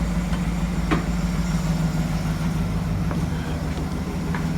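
GMC Yukon Denali's 6.2-litre L92 V8 running steadily at idle on a high-mileage engine that the owner hears chattering from the pushrods and slapping its pistons when cold, now on fresh 0W-20 oil. A faint click about a second in.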